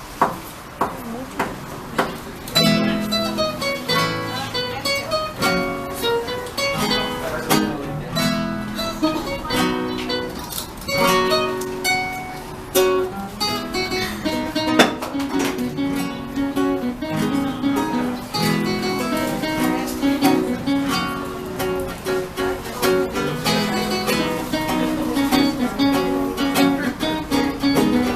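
Acoustic guitar music, strummed and plucked, growing fuller about two and a half seconds in.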